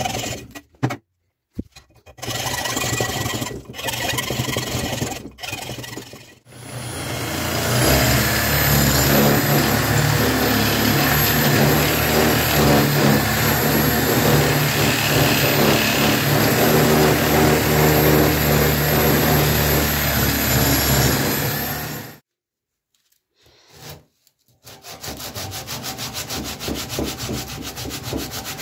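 Hacksaw strokes through wooden knife-handle scales in short, choppy bursts. Then a handheld rotary tool with a small abrasive wheel runs steadily for about fifteen seconds with a high whine as it grinds the wooden handle. Near the end come quick back-and-forth strokes of sandpaper rubbing the wood.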